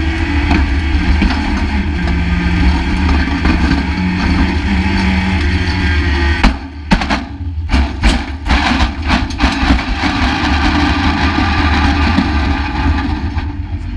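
A 1-litre junior stock car's small engine running hard, heard from inside its stripped-out cabin along with road noise. About halfway through the engine note drops briefly, and a run of sharp knocks and bangs follows over the next few seconds.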